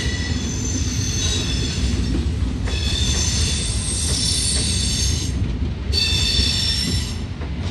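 Long Island Rail Road train rolling slowly with a low rumble, its wheels squealing in several high, steady tones. The squeal breaks off twice, briefly, and dies away near the end.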